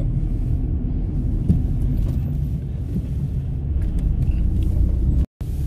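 Car driving slowly, heard from inside the cabin: a steady low engine and road rumble. The sound cuts out for a split second near the end.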